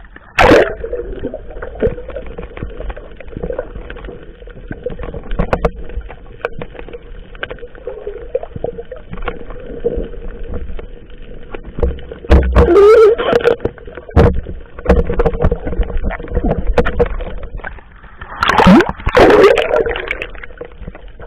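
Water splashing and sloshing around a small fishing boat while a net full of fish is worked, over a steady low hum and wind rumbling on the microphone. Louder bursts of splashing come about half a second in, around the middle and near the end.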